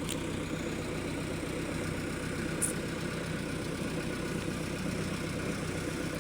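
Backhoe loader's diesel engine idling steadily, with a brief high click about two and a half seconds in.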